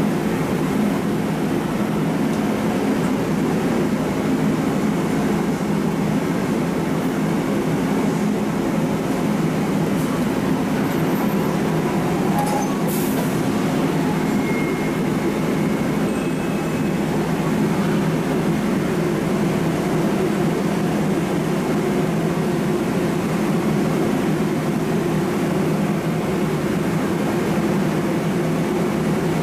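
A MARTA rapid-transit railcar standing at the platform, its air-conditioning and auxiliary equipment running with a steady, even hum.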